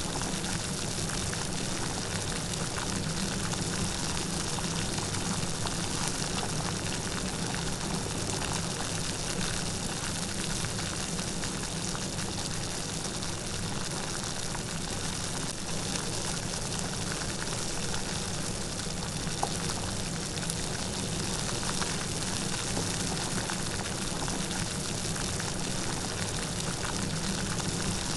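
Steady light rain falling, an even hiss of many small drops with a few louder single drop ticks, no thunder.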